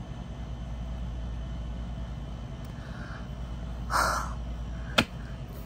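A woman's short, breathy exasperated cry about four seconds in, followed about a second later by one sharp tap, over a low steady hum.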